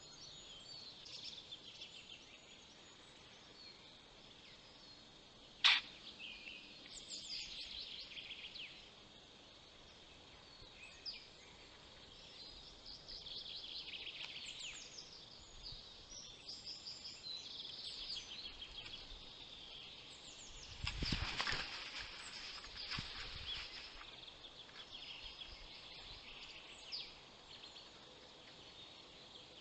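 Several small songbirds singing and calling in forest, a steady faint chorus of high chirps and trills. A single sharp click comes about six seconds in, and a short cluster of louder knocks and rustling comes about two-thirds of the way through.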